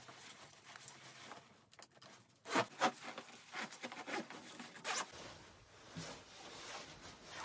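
Zipper of a puffer jacket being zipped up in a series of short pulls, the strongest pulls coming in the first half.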